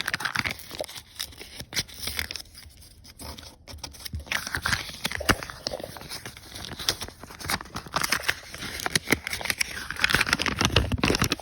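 A paper envelope being opened by hand: paper tearing, rustling and crinkling in irregular bursts.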